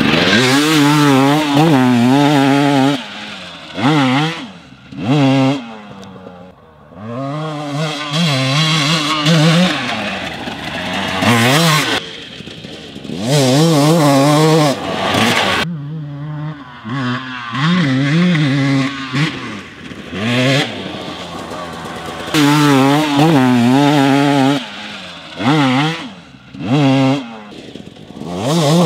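2019 KTM 300 XC carbureted single-cylinder two-stroke dirt bike engine being ridden hard, revving up and dropping off again and again as the throttle is opened and shut. The pitch swoops up and down through loud surges, with quieter lulls between them.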